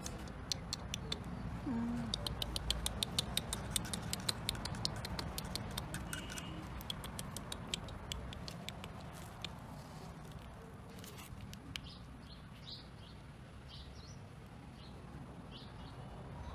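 Metal tweezers clicking in quick runs of small, sharp clicks, several a second, as ticks are gripped and pulled from a puppy's ear. In the second half the clicks thin out and faint short high chirps come and go.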